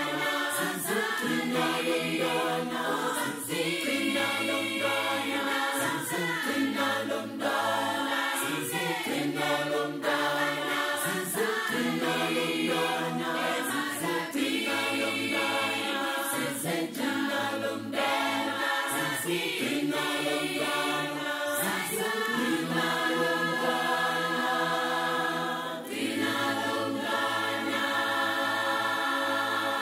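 Background choral music: a choir singing, its voices holding chords that change every second or two.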